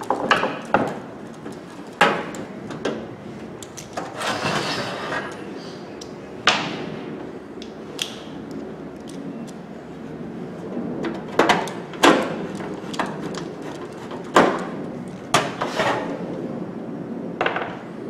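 Scattered knocks and clicks from handling the microwave oven's sheet-metal cabinet and a screwdriver on a wooden workbench, with a longer, noisier stretch about four seconds in.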